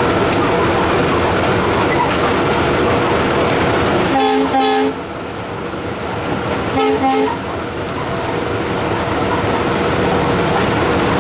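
Steady running noise inside the cab of a WDP4B (EMD GT46PACe) diesel-electric locomotive in motion, with the locomotive's horn sounding two short blasts about four and seven seconds in, each a chord of several tones.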